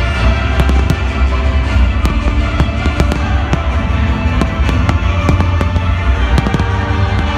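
Display fireworks going off in quick succession, many sharp bangs and crackles, over loud music with heavy bass.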